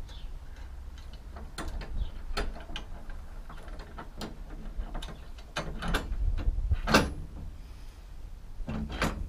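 Irregular metal clicks and knocks as the steel arm of a swing-away spare wheel carrier and its bolts are handled and fitted. The loudest knock comes about seven seconds in.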